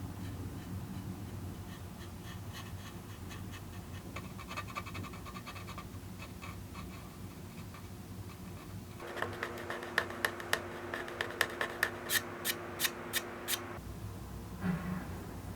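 Light scratching of small handwork, likely a paintbrush stroking paint onto a hard plastic figure, over a steady low hum. In the second half a run of sharp clicks and taps over a steady tone lasts about five seconds, then a single knock.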